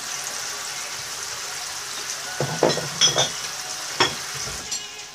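Alaskan cod fillets searing in a frying pan of sesame oil, olive oil and butter, with a steady sizzle. A few short sharp clicks stand out around the middle and again about four seconds in.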